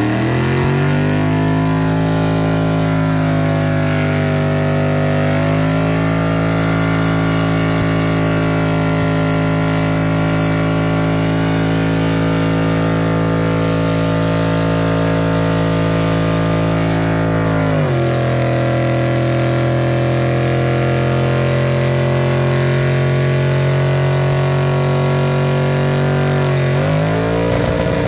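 A classic Chevrolet pickup's engine held at high revs through a long burnout, the rear tyre spinning on wet pavement. The revs climb at the start, hold steady, drop to a lower steady pitch about two-thirds of the way through, and climb again near the end.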